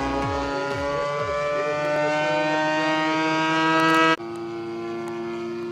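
Single-cylinder two-stroke gasoline engine of a DLE 55cc-powered giant-scale RC plane flying overhead, its note rising steadily. About four seconds in it drops abruptly to a quieter, steady drone.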